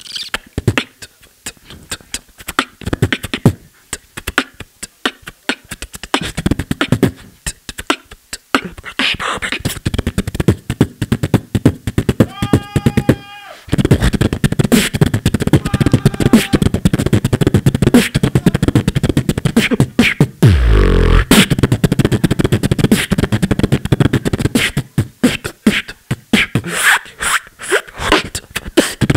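Beatboxing into a handheld microphone through a PA: rapid vocal kick, snare and hi-hat sounds in a fast rhythm. About twelve seconds in there is a held sung note, then the beat comes back louder and fuller, with a deep bass drop about two-thirds of the way through.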